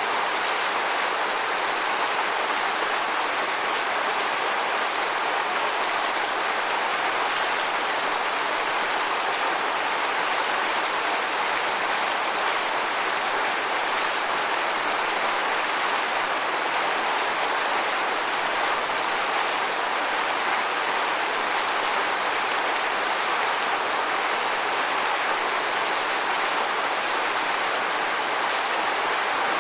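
Waterfall: water falling and rushing in a steady, even hiss.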